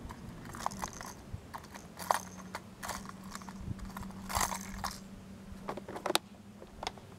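Plastic crankbaits clicking and clattering against a clear plastic tackle box as a hand rummages through the compartments, with a sharp snap about six seconds in as the box's lid is shut.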